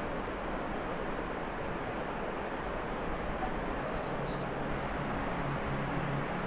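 Steady outdoor rushing ambience, an even hiss-like noise, with a few faint bird chirps from about four seconds in.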